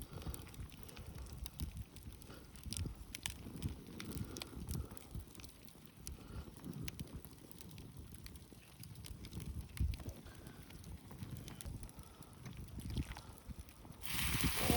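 Wood campfire crackling with scattered sharp pops over an uneven low rumble. Near the end a loud steady hiss starts suddenly.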